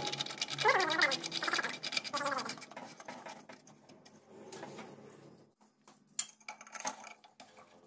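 Light scratching and small metal clicks as the spin-on hydraulic lift filter of a Massey Ferguson tractor is screwed on by hand. The handling sounds die away after about three seconds.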